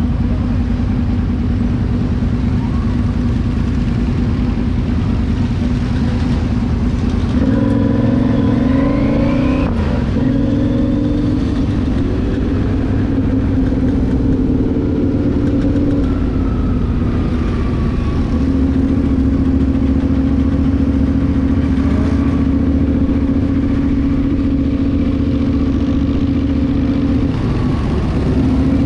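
Motorcycles riding past in a column, engines running in a steady drone, with a few engines revving up and down about a third of the way in and again near the middle.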